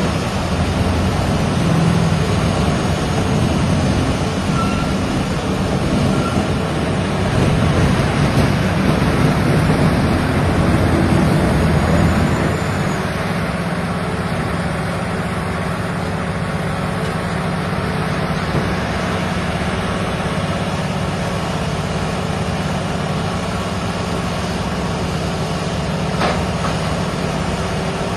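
Large Vermeer wood chipper running steadily. It is louder and rougher for the first twelve seconds or so, then drops to a steadier, slightly quieter run.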